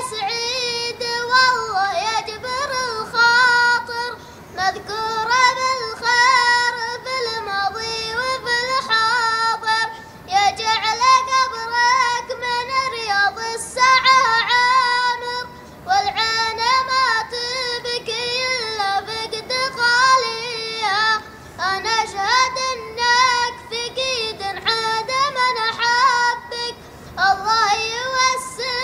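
A child chanting an Arabic poem in a high, melodic sung style. The voice wavers and glides through long phrases of a few seconds each, with short breaks between them.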